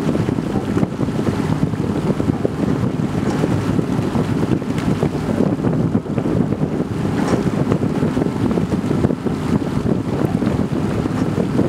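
Wind buffeting the microphone over the steady low rumble of a motor launch running alongside a rowing shell.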